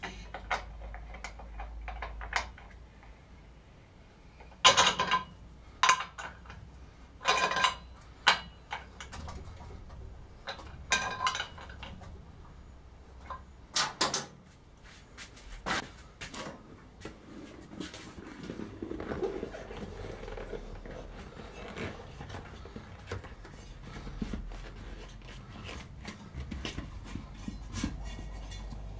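A wrench and brass nipple on the steel pressure tank of a household pump station: scattered sharp metallic clinks and knocks, loudest in the first half. Softer rubbing and handling noise follows as a new rubber membrane is worked into the tank's flange opening.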